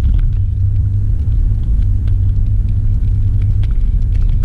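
Low, steady rumble of engine and road noise inside a 2006 Toyota Avalon's cabin as the car drives off again.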